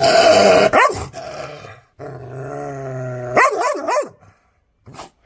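Aggressive dog barking and growling: a harsh bark in the first second, a long low growl about two seconds in, then a quick run of three barks and one short bark near the end.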